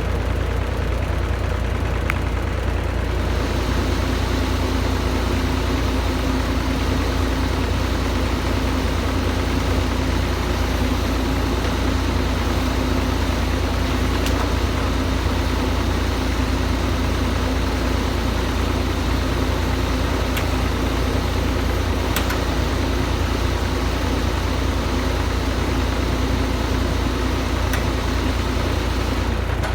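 Diesel engine of a large excavator running steadily, with a steady hum setting in about four seconds in and a few faint ticks.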